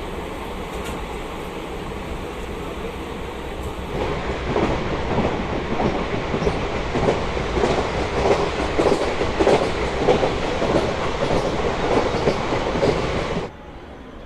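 A steady hiss of rain and wind, then about four seconds in a train's wheels clattering over the rail joints in an uneven rhythm. The clatter cuts off sharply near the end.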